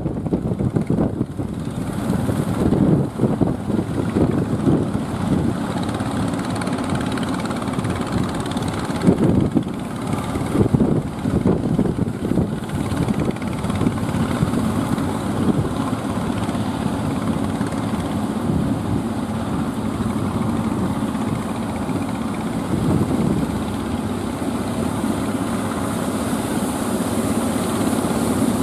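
Engine of a wooden fishing boat running steadily, heard from shore, mixed with the rush of surf and wind.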